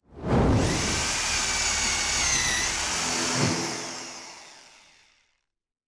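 Logo-sting sound effect: a low hit opens a loud whooshing swell with high gliding tones over it, a second short hit comes about three and a half seconds in, and the sound then fades away to silence.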